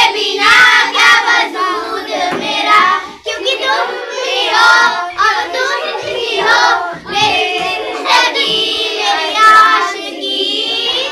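A group of children singing a Hindi song together, voices in unison.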